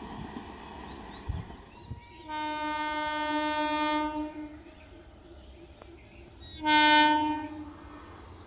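Indian Railways locomotive horn sounding twice: a long blast of about two seconds, then a shorter, louder blast about two seconds later.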